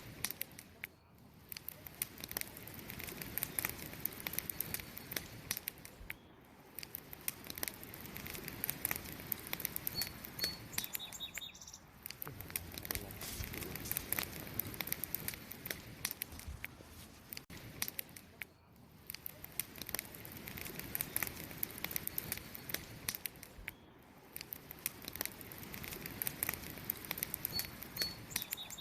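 Fire crackling and popping: many small sharp pops and snaps over a low steady rush of burning, swelling and easing every few seconds.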